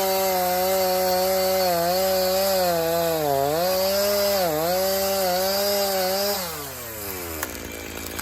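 Stihl Farm Boss two-stroke chainsaw running at full throttle while cutting wood, its pitch sagging briefly twice under load. About six seconds in the throttle is released and the engine winds down toward idle, followed by a few light knocks.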